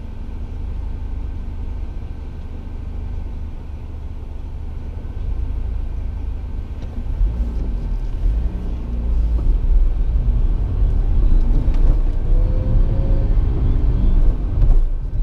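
Engine and road noise inside a small old Citroen car as it drives, a low rumble that grows louder from about halfway through.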